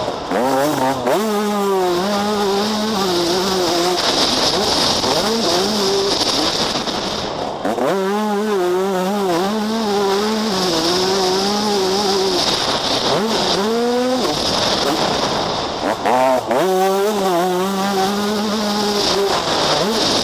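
Yamaha YZ125 two-stroke motocross engine revving hard, heard from on the bike: the pitch climbs sharply several times as the rider accelerates and shifts, then holds high between climbs. A steady high hiss runs over it.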